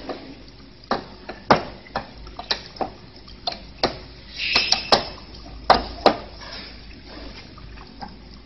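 Irregular sharp metallic clinks and taps, about a dozen, as steel wire and machine parts are handled by hand at the weaving head of a chain link fence machine, with a brief scraping rasp about halfway through.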